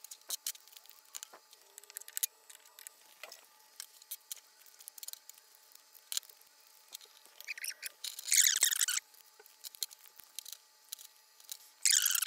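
Plastic dust boot parts being handled on a wooden workbench: scattered light clicks and taps as pieces are picked up and set down, with a louder scraping rustle of plastic sliding about eight seconds in and again at the end.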